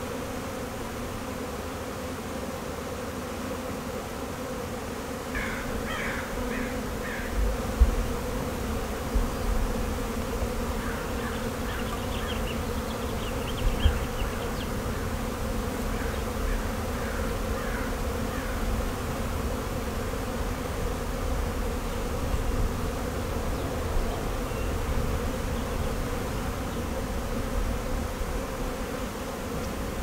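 Honeybees buzzing steadily among almond blossoms, a low continuous hum of many wings. A bird chirps in short quick series several times, and there are a few brief low bumps.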